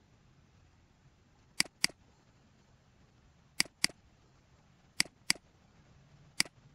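Computer mouse button clicks: three quick double-clicks about two seconds apart, then a single click near the end.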